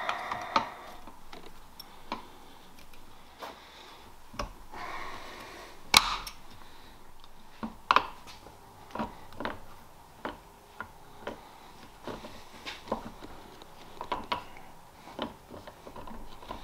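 Scattered small clicks and light metallic taps of hand work on a Ford flathead distributor while an electronic ignition plate is fitted, with a few sharper knocks, the loudest about six and eight seconds in.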